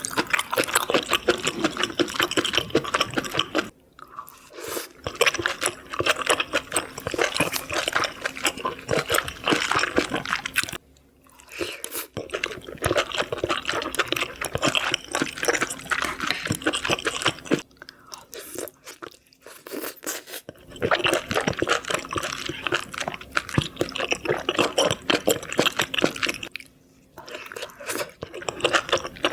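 Close-miked eating of sauced seafood: wet chewing and crunching in stretches of several seconds, broken by short pauses.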